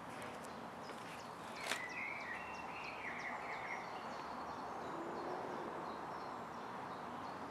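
Steady ambient hiss with faint birds chirping, and a warbling bird call shortly after a single sharp click about two seconds in.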